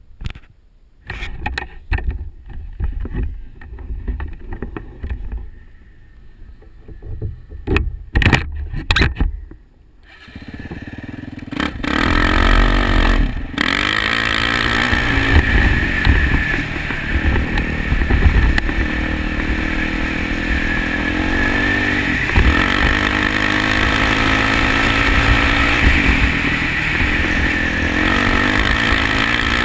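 Knocks and a low wind rumble from handling the camera. About ten seconds in, the single-cylinder four-stroke engine of a Kawasaki KLX450 dirt bike comes in and runs loudly under load, its pitch rising and falling with the throttle and briefly dipping at gear changes.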